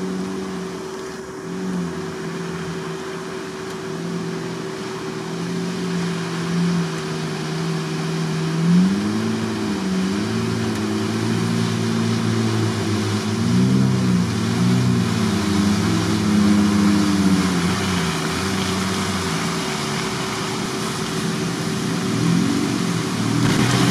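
Off-road 4x4 engines, a Jeep Wrangler leading, revving up and down as they drive through deep water and mud, with water splashing. A steady engine hum runs underneath.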